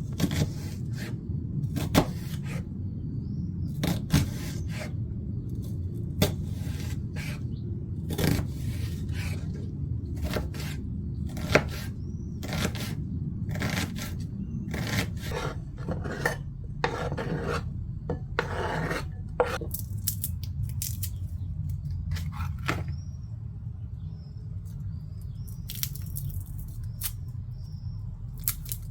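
Kitchen utensils knocking, clinking and scraping against pots and dishes during cooking, many short sharp strokes over a steady low hum.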